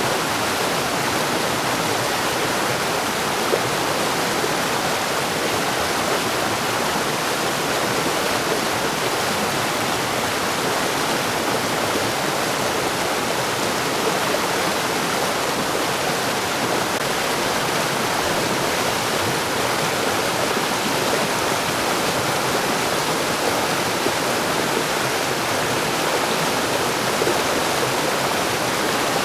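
Mountain stream rushing steadily over rocks, a constant full splashing and gurgling of running water.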